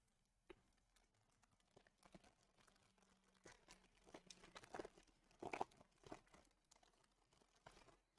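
Foil wrapper of a football trading-card pack being torn open and crinkled, a faint run of crackles and rips that is loudest about five and a half seconds in.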